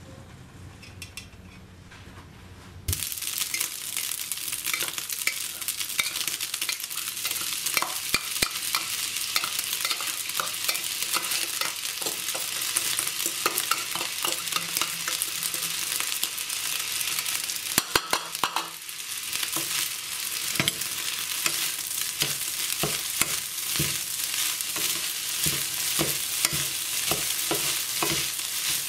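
Rice and tuna frying in a non-stick pan with a steady sizzle that starts suddenly about three seconds in. A wooden spoon stirs them throughout, giving frequent scrapes and knocks against the pan that turn into a regular stirring rhythm near the end.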